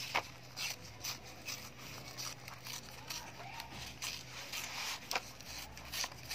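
Blue construction paper being torn by hand, in a run of short, irregular rips several times a second.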